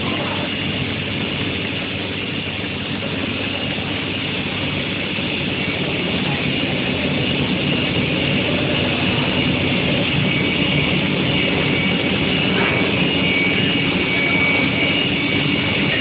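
Steel-sheet induction heating line running: a steady machine noise with a thin, high steady whine, joined by a second high tone after about ten seconds.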